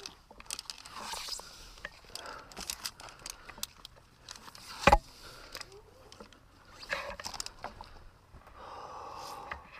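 Scrapes and small clicks of a tree climber shifting on the trunk and handling his gear, with one sharp knock about five seconds in.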